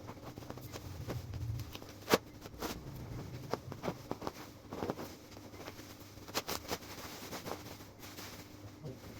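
Packaging of an aquarium LED lamp being handled and opened: scattered clicks, taps and crinkling, with one sharp click about two seconds in.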